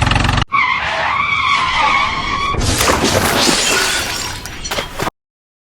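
Vehicle-style sound effects: a short low engine-like rumble that breaks off, then a wavering screech like skidding tyres, then a noisy clatter like a crash with breaking glass. It all stops abruptly near the end.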